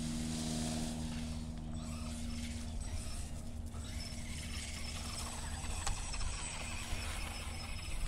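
Hosim 1:10-scale brushless RC car driving: a thin high motor whine over rough, rustling tyre and drivetrain noise.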